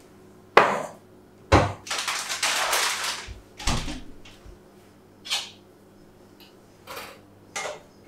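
Kitchen clean-up: a wall cupboard door knocking shut and things being put away and set down, a string of separate knocks and clatters with a longer stretch of noise about two seconds in.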